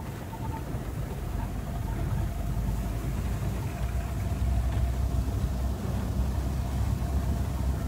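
Car engine and road noise heard from inside the cabin as it drives over a bumpy grass field track, a steady low rumble that grows louder about halfway through.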